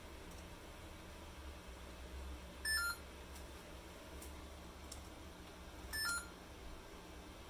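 Electronic beeps from a laptop's small speaker: short two-note beeps, a higher note stepping down to a lower one, coming twice about three seconds apart. Between them come a few faint clicks.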